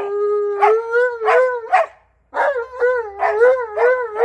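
Alaskan malamute howling: a long held note that wavers and breaks off about two seconds in, then, after a short pause, a run of quick wavering "woo-woo" howls, about three a second.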